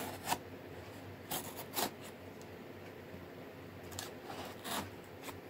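Pro-Tech Mordax button-lock knife blade cutting packing tape and cardboard on a shipping mailer: several short scraping rasps at uneven intervals.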